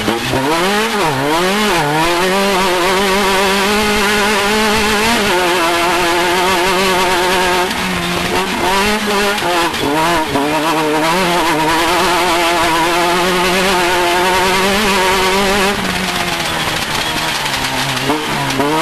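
Off-road race vehicle's engine running hard under throttle. Its pitch rises and falls quickly for the first few seconds, holds nearly steady for about ten seconds, then rises and falls again near the end.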